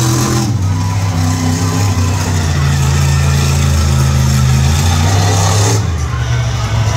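Monster truck engine running hard. It revs up at the very start, drops back about half a second in, then holds a steadier, lower pitch with small changes in throttle.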